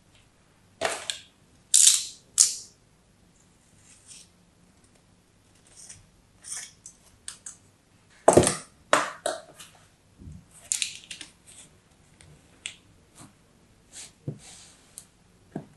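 Kinetic sand handled with fingers and a tool in a plastic tray: short, crisp crunching and rustling bursts at irregular intervals as it is pressed, crumbled and dug. The loudest come in a cluster about a second in and again about eight seconds in.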